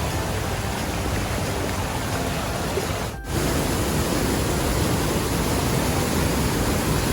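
Rushing water from a waterfall or fast stream, a steady full roar. It breaks off briefly about three seconds in and comes back a little louder.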